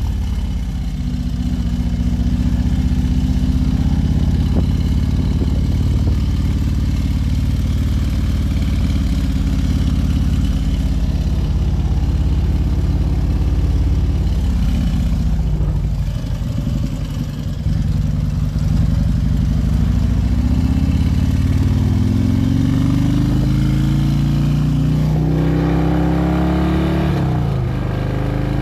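Harley-Davidson Road King's V-twin engine running under way. Its pitch sags briefly about sixteen seconds in, then climbs as it accelerates in the last third.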